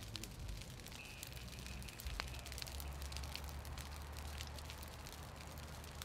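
Burning brush crackling, with many irregular small pops and snaps, over a steady low rumble.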